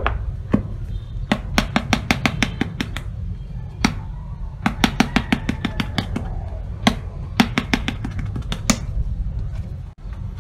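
Fingertips tapping quickly on a paperback book's cover, in three short runs of about six taps a second with a few single taps between, over a steady low hum.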